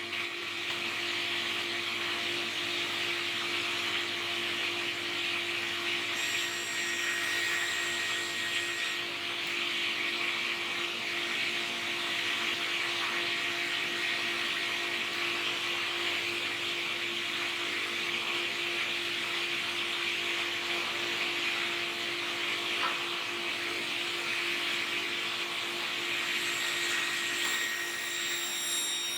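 Woodworking power tool motor running steadily with a constant whine and hiss, without pause, while joints are being cut.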